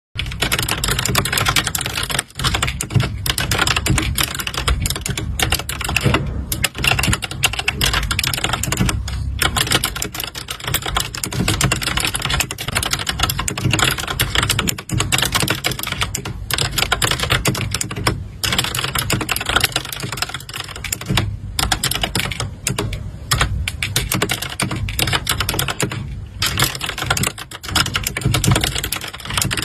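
Computer keyboard being typed on fast and continuously, a dense run of key clicks with only brief pauses.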